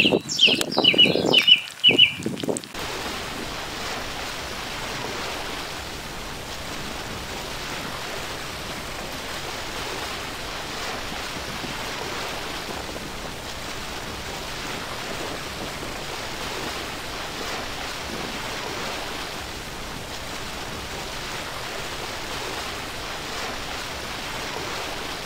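Steady sizzling of hot oil as fish pieces fry in beaten egg on a flat iron tawa, settling in about three seconds in after a short burst of other sound.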